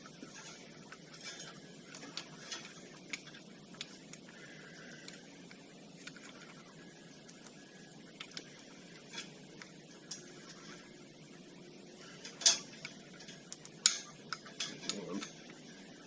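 Metal parts of an ATV front brake caliper clinking and clicking as a new brake pad and its Allen pins are worked into place: scattered light clicks, with two sharper metallic clinks near the end.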